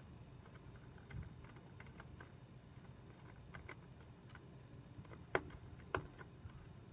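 Faint scattered ticks and clicks of a small Torx screwdriver backing a screw out of a 2010 Mac Mini's internal frame. Two sharper clicks come about five and six seconds in.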